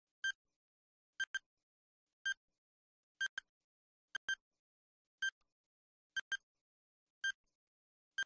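Countdown-timer sound effect ticking about once a second: short, high, pitched ticks, some of them in quick pairs.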